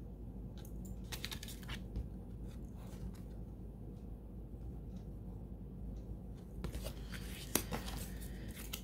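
Faint handling sounds: scattered small clicks and scratches as a glossy printed card is handled and turned over, then, about two-thirds of the way through, denser rustling and crinkling as a hand digs among bubble-wrap packing in a cardboard box.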